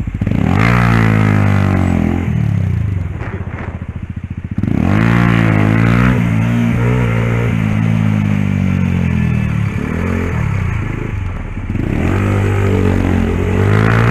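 Motorcycle engine, heard from on the bike, revving up and easing off several times as it accelerates and slows through traffic, its pitch rising and falling in repeated sweeps.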